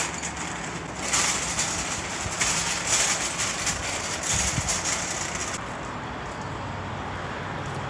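A metal shopping cart rattling and clattering as it is pushed over gravel. The rattle stops about five and a half seconds in, leaving a low steady hum.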